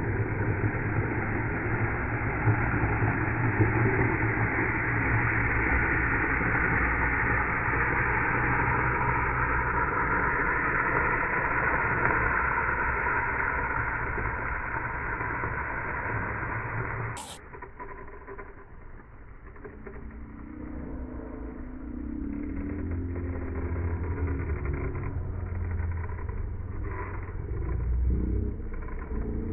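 Longboard wheels running and sliding on asphalt: a loud, steady, rough hiss that cuts off suddenly with a click about two-thirds of the way through. Quieter rumbling follows.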